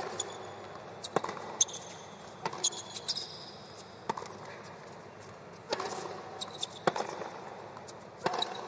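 Tennis rally on a hard court: sharp racquet strikes and ball bounces every second or so, with short high squeaks of shoes on the court surface.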